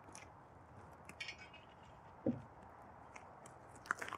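Faint footsteps crunching on gravel, a few scattered crunches and clicks, with a dull thump just past halfway.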